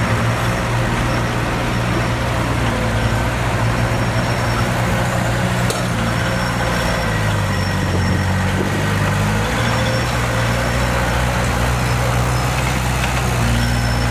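Diesel engine of heavy earthmoving machinery running steadily; about halfway through, its note drops lower for a couple of seconds before returning to its earlier pitch.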